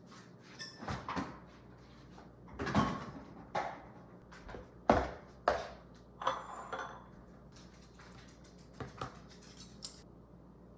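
Dishes being handled in a kitchen: a string of knocks and clinks, loudest around a few seconds in, over a low steady hum.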